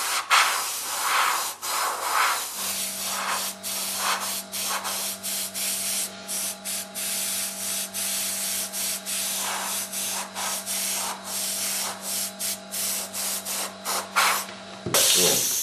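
Airbrush spraying paint in many short bursts of hiss, the trigger opened and closed a couple of times a second for fine strokes. A low steady hum runs underneath from about two and a half seconds in until shortly before a last, longer burst near the end.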